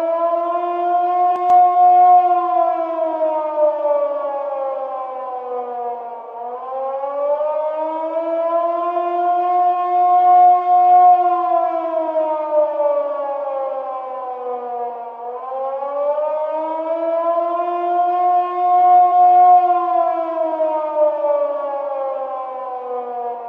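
Warning siren wailing, its pitch slowly falling, rising, holding at the top and falling again, in long cycles of about nine seconds.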